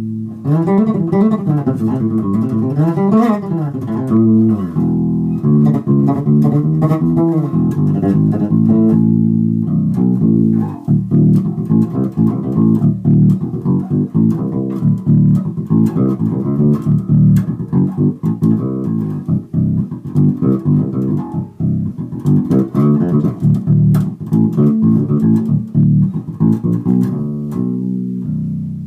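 Carvin SB5000 five-string electric bass played solo, plucked with the fingers. For the first few seconds the notes slide up and down the neck, then it settles into a busy line of separate plucked notes.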